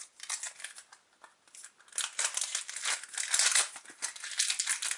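Crinkling of a foil trading-card booster wrapper and rustling of cards being handled, in irregular bursts that get busier about two seconds in.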